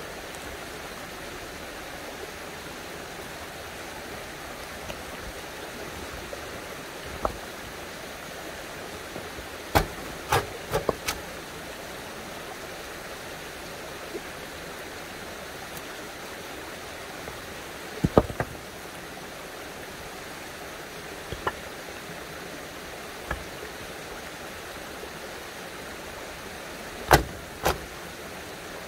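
Rocks knocking together as stones are set by hand into a dry-stone wall: sharp clacks in small clusters, a group of four about ten seconds in and the two loudest near the end. Under them runs a steady rushing hiss of running spring water.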